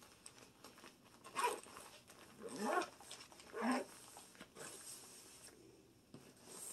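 A dog whines three times, short and faint, about a second apart, over the soft rustle of a fabric lunch bag being zipped shut.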